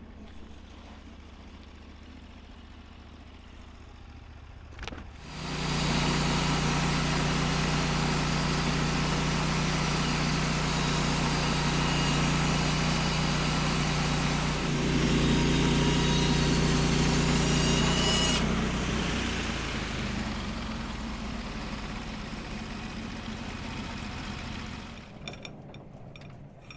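A sawmill's engine is idling, then throttled up about five seconds in as the blade is run through a pine log. It runs loud and steady with a cutting hiss for about thirteen seconds. The cut ends and the engine runs on lower before winding down near the end.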